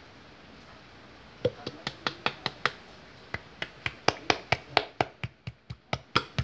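Bottle of thick coconut milk being shaken and tapped upside down over a blender jar. It makes a quick run of sharp taps, about four a second, starting about a second and a half in, as the thick coconut milk will not pour out.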